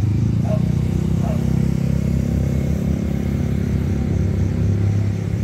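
Heavy diesel engines running with a steady low drone.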